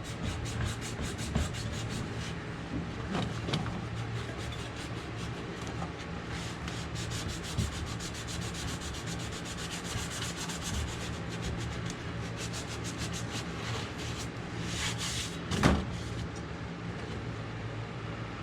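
Steady rubbing and scraping noise over a low steady hum, with one louder knock about fifteen seconds in.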